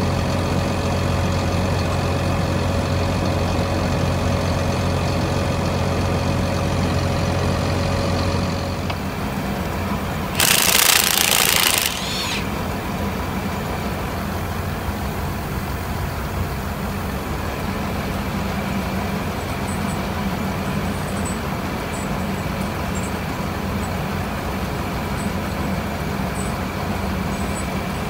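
Heavy engine running steadily, its note shifting about eight seconds in. About ten seconds in, a loud hiss lasts about a second and a half.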